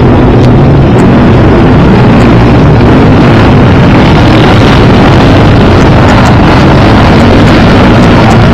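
Several sidecar motocross outfits racing past on a dirt track, their engines revving hard together in one loud, unbroken din.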